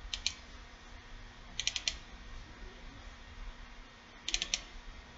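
Short runs of quick clicks on a computer keyboard: two near the start, four about a second and a half in, and four more near the end, over a faint steady hum.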